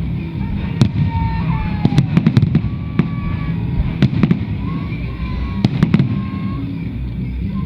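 Fireworks display: many sharp bangs and crackles at irregular intervals over a continuous low rumble.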